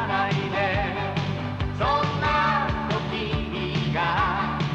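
Ending-credits song: a sung melody over band accompaniment with a steady drum beat.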